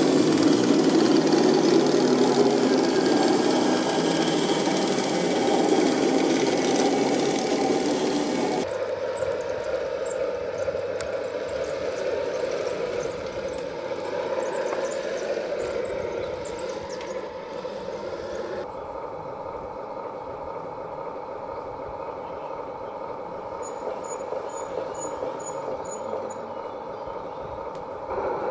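Radio-controlled model tanks driving, a steady mechanical engine-like running noise from their motors and tracks. The sound changes abruptly about 9 seconds in and again about 19 seconds in, getting quieter each time.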